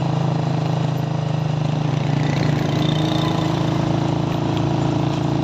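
Motorcycle engine running steadily while riding, a constant low hum.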